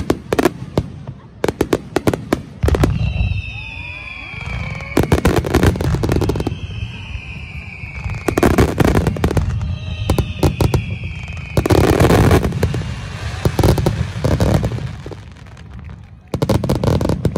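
A fireworks finale. It opens with a fast run of sharp crackling reports from many shells, then moves into salvos of heavy booming bursts, four of them, with high tones sliding slowly down in pitch between and beneath the bursts.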